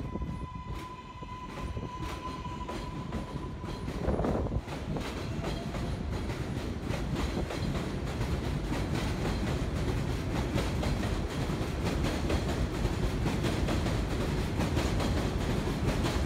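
New York City Subway R188 train pulling out along an elevated station, with a steady electric motor whine for the first few seconds. About four seconds in comes a louder surge, then a building rumble and rapid clatter of wheels over rail joints as the train gathers speed.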